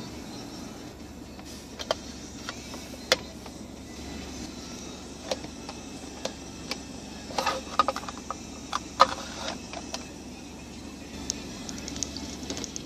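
Clear acrylic tip box being handled: scattered sharp plastic clicks and clatter, busiest about halfway through, over a steady low hum.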